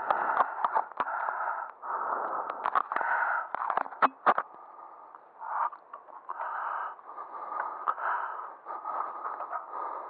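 Mountain bike riding a dirt trail, heard through a bike-mounted camera: a rough rattling rush of tyres and frame over the ground, with two sharp knocks about four seconds in.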